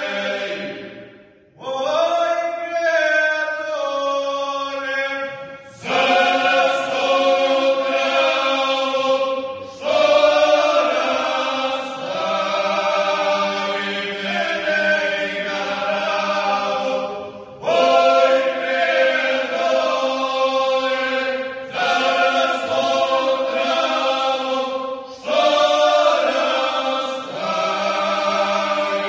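Men's folk singing group singing a traditional song in several voices, in long held phrases with brief pauses for breath between them.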